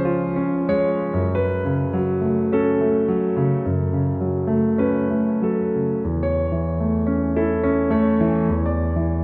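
Background piano music: a slow melody over sustained bass notes.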